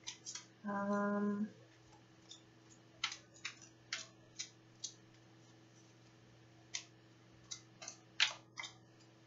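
Deck of oracle cards shuffled by hand: an irregular series of short card slaps and clicks, busiest from about three seconds in.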